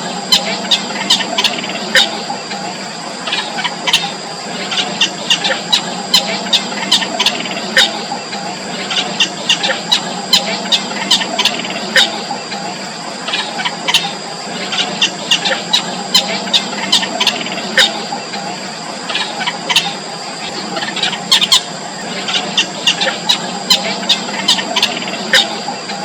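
Bittern chicks in the nest calling, a rapid, irregular stream of short, sharp squeaky calls, several a second, in clusters. A steady high-pitched whine runs underneath.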